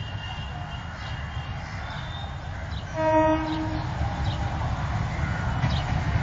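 A train horn sounding one steady blast of just under a second, about three seconds in, over a constant low rumble.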